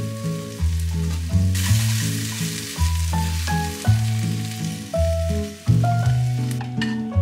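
Chopped tomatoes and beaten egg frying in a pan, stirred with chopsticks: a loud sizzle rises about a second and a half in and dies down shortly before the end. Background music with a steady bass line plays throughout.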